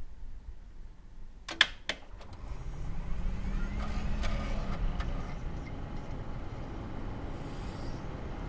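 A desktop computer being switched on: two or three sharp clicks about one and a half seconds in, then the fans and drives spin up into a steady low hum, with a few faint ticks around four seconds in.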